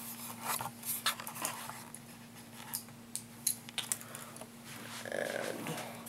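Scattered light clicks and rustles of computer parts and cables being handled and lined up inside a PC case, over a steady low hum. A short breathy sound comes about five seconds in.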